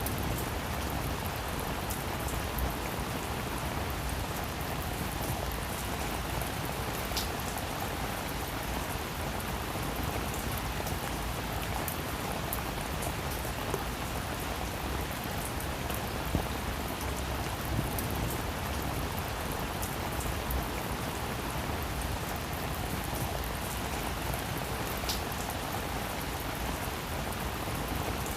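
Steady rain falling on a roof, an even hiss with scattered individual drop taps.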